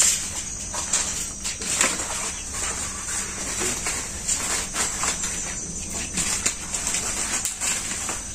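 Banana leaves and a nylon mesh hanging dryer rustling and clicking irregularly as the leaves are hung inside it by hand, over a steady high insect drone.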